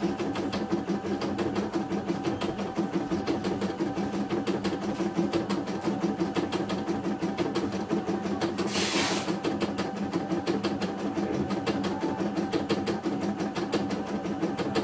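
CNY E900 computerised embroidery machine stitching out a design: a steady motor hum with a rapid, even ticking of the needle. A brief hiss comes about nine seconds in.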